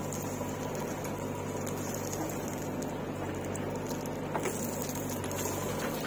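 JCB backhoe loader digging stony soil: its diesel engine hums steadily under a gritty patter of earth and stones scraping and trickling from the bucket. A few faint clicks come about four seconds in.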